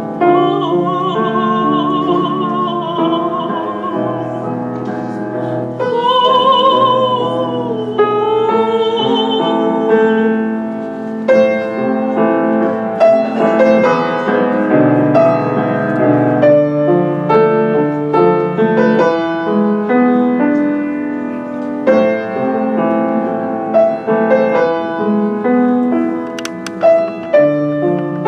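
Operatic-style singing with wide vibrato over piano accompaniment, the voice falling away after about ten seconds and the piano playing on alone.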